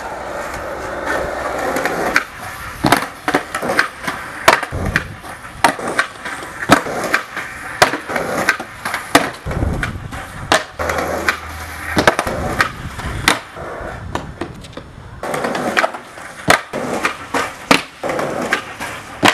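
Skateboarding: wheels rolling on pavement with many sharp clacks of boards popping and landing, about one or two a second.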